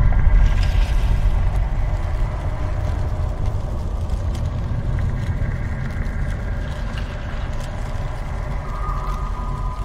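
Ambient drone music: a heavy deep bass under several long held tones, slowly getting quieter, with a new held tone coming in about nine seconds in.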